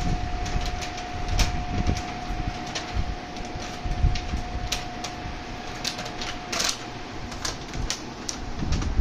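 Barbie doll box packaging being torn and crinkled by hand: irregular sharp crackles and rips of paper and plastic, over a steady thin hum.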